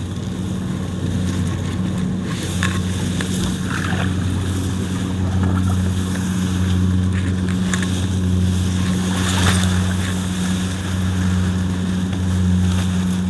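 Steady low engine drone, a motor running at an even speed, with a few faint short clicks and rustles over it.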